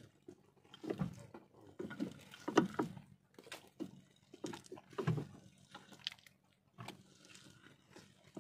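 Wet gill net being hauled by hand over the bow of a wooden fishing boat: irregular splashes, drips and slaps of net and water, about one or two a second, over a faint steady low hum.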